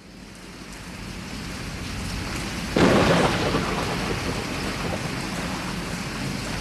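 Steady rain that fades in and grows louder, with a thunderclap about three seconds in that rumbles and slowly dies away.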